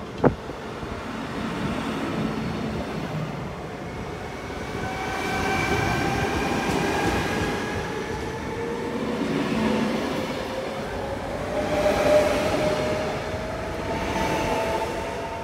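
Electric train running. Its traction motors whine with several tones that rise slowly in pitch as it gathers speed, over a rail rumble. A single sharp click comes just at the start.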